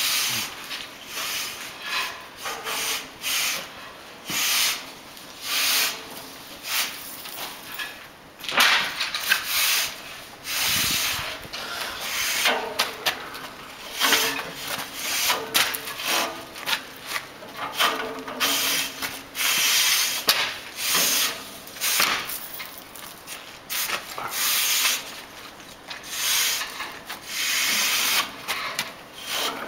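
A tube-sweeping rod and brush scraping in and out of a steam locomotive's boiler fire tubes, in repeated strokes roughly one a second, as soot is swept from the tubes.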